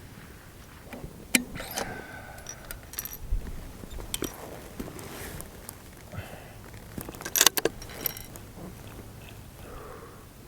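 Handling noise: scattered clicks and light rattles, with a sharper cluster of clicks about seven and a half seconds in.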